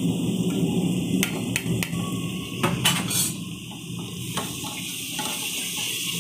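Metal cookware knocks and clatters several times, then a masala of softened onion and spices sizzles and fries in an aluminium pot as it is stirred.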